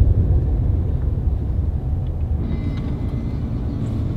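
Low, steady rumble of a car driving on a road.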